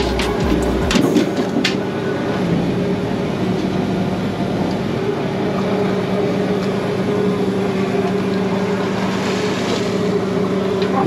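A fishing boat's engine running with a steady, even drone. A few sharp clicks and rattles of a wire-mesh prawn trap being handled come in the first two seconds.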